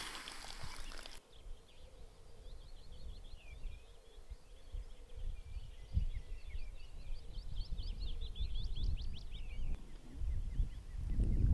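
A songbird singing one long, unbroken song of rapid high chirps and trills lasting about eight seconds, over a low rumble. A rustling noise cuts off about a second in.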